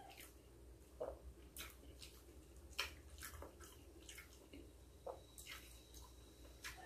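Near silence broken by faint, scattered clicks and smacks of eating close to the microphone: chewing and handling a small cake in its paper cup.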